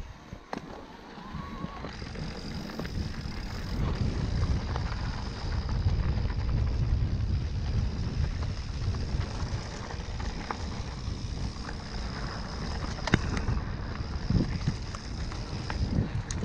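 Electric mountain bike ridden over rough ground: wind on the microphone and a steady rumble from the tyres, with scattered knocks from the bike over bumps and a steady high whine.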